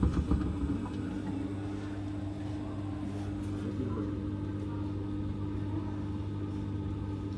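Hotpoint WT761 Ultima washing machine running, its motor giving a steady hum, with a few irregular knocks in the first half second.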